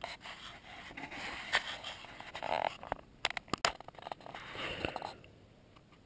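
Rustling and scraping of a nylon down sleeping bag being handled, with a few sharp clicks about three and a half seconds in, then it goes quiet near the end.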